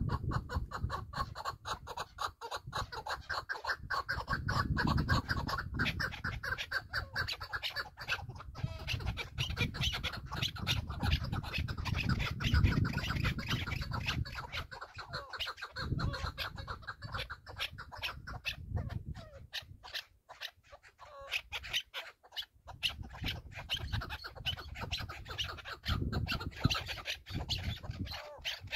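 Partridge calling in a rapid, continuous run of clucking notes, over a fluctuating low rumble of wind on the microphone.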